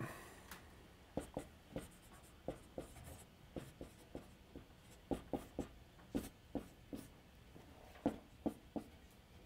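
Dry-erase marker writing on a whiteboard: a run of short, irregular taps and strokes as the marker touches down and forms characters.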